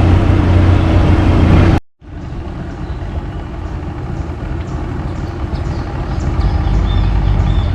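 A tour boat's motor running steadily, broken off by an edit about two seconds in; after the cut the motor hum returns quieter and grows again, with repeated short high bird chirps over it.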